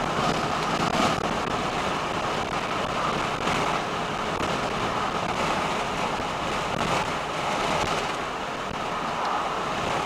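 Steady road and wind noise heard inside a car's cabin at motorway speed, tyres and air rushing without letup.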